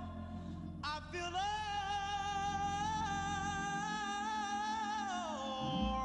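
Background song: a singer holds one long note with a slight waver over backing music, then slides down to a lower note near the end.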